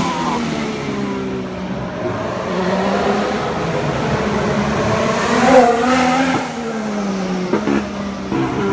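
2015 Formula One cars' V6 turbo hybrid engines running on track, their pitch falling and rising through the gears. One car passes loudest about five and a half seconds in, and there are a couple of short cracks near the end.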